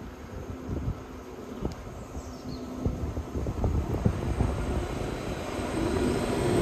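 Diesel engine of a rail track tamping machine approaching slowly, its rumble and low hum growing steadily louder, with wind buffeting the microphone.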